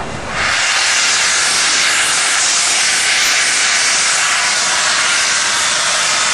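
Steam locomotive venting a large jet of steam at track level: a loud, steady hiss that starts abruptly about half a second in.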